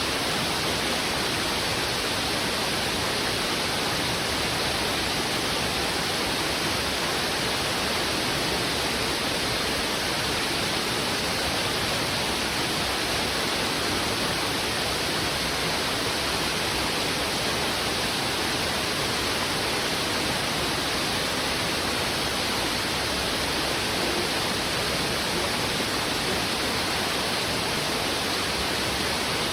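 Fast, heavy river current rushing over rocks: a steady, unbroken rush of water with no breaks or changes.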